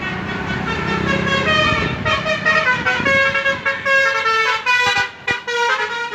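Bus telolet horn playing a quick melody of short, stepped notes over engine rumble. The tune starts about a second and a half in.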